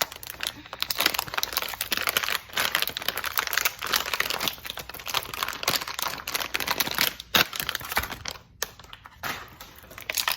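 Plastic packaging of a blind-bag slime toy crinkling and crackling as it is handled and pulled at to open it, with a couple of short pauses in the second half.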